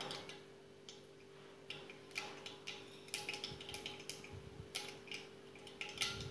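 Mustard seeds beginning to crackle and pop in hot oil: scattered sharp ticks that grow more frequent after about two seconds, over a steady low hum.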